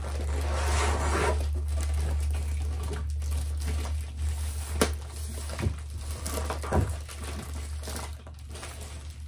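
Plastic-wrapped rolled diamond painting canvas being handled and slid back into its packaging: plastic crinkling, with a few light knocks about five and seven seconds in, over a steady low hum.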